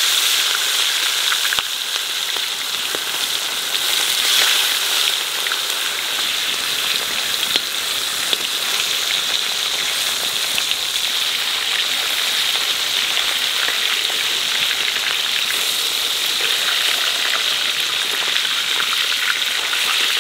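Katla fish steaks frying in hot oil in a large aluminium kadai: a steady, dense sizzle peppered with small crackles.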